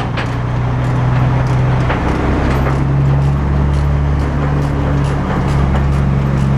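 An engine running steadily near idle, its pitch rising slightly about two and a half seconds in.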